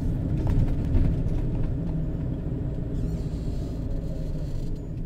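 A van's engine and road noise heard from inside the cab while driving: a steady low hum with a few light knocks.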